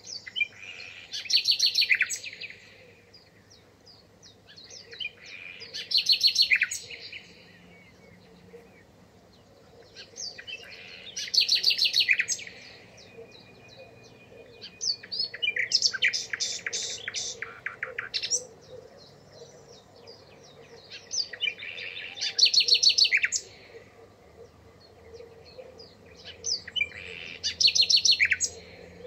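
A songbird singing a short, fast trilled phrase about every five seconds, six phrases in all, each a quick run of repeated notes.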